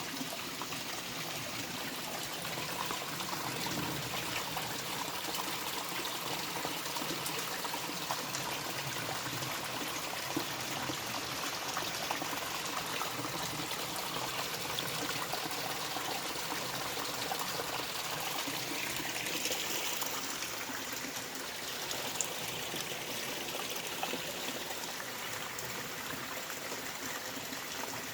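A stream of water running and trickling under big stones, a steady splashing rush with small splashes and gurgles.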